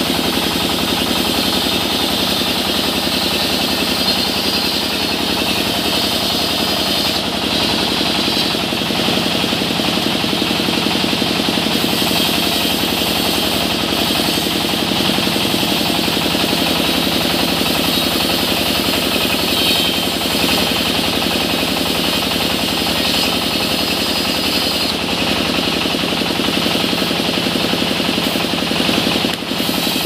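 Sawmill band saw and the stationary engine that drives it, running steadily with a rapid, even pulsing beat while the blade rips mahogany into planks.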